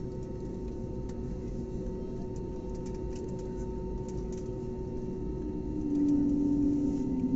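Steady cabin hum inside an airliner on the ground before takeoff, engines and air system running with a low rumble and a few constant tones. About six seconds in, a louder low steady tone swells in.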